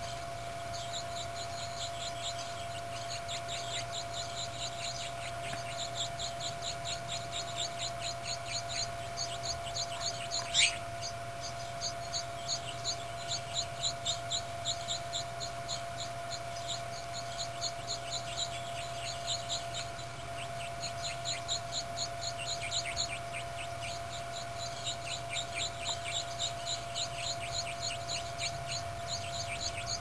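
Nestling songbirds begging for food at the nest: a fast, continuous stream of short, high, thin cheeps that comes in runs with brief lulls. Under them is a steady hum, and a single sharp click is heard about ten seconds in.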